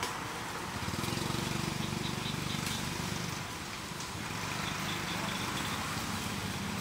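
A steady low engine hum, with outdoor ambience.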